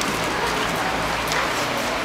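Steady street ambience: an even, continuous hiss with no distinct events.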